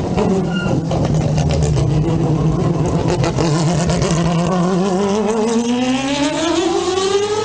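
Mazda 787B's four-rotor rotary engine running loud and steady at low revs as the car rolls past, then rising smoothly in pitch as it accelerates away over the last few seconds.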